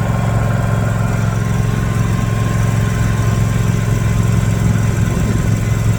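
Riding lawn mower engine running steadily as the mower drives along, with a constant low hum.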